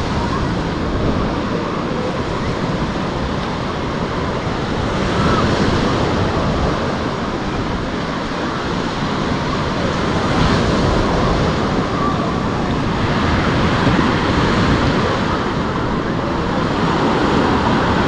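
Sea surf washing onto a sandy beach, the rush swelling every four or five seconds as waves come in. Wind buffets the microphone.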